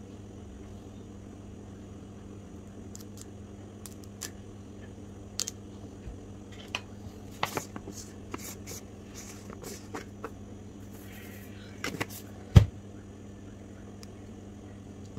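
Scattered light taps, clicks and scrapes from pieces and a plastic container being handled on a foil-covered board, with one louder knock about twelve seconds in, over a steady low hum.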